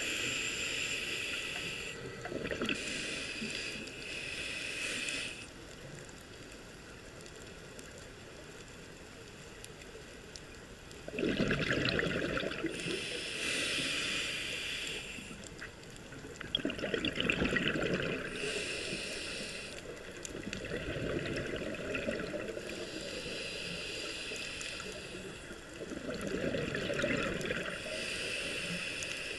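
Scuba diver breathing through a regulator underwater: hissing inhalations alternate with louder rushes of exhaust bubbles, several breaths a few seconds apart, with a quieter lull in the first half.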